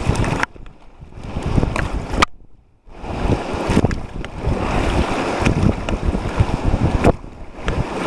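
Whitewater rushing and splashing around a raft running a river rapid, with wind buffeting the microphone. The sound cuts out sharply twice in the first three seconds, then returns.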